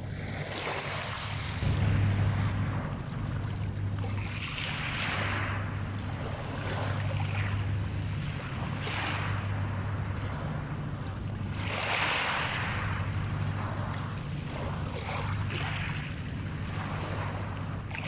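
Small waves washing in over a pebble beach, a swell of hiss every three to four seconds. A steady low rumble runs underneath.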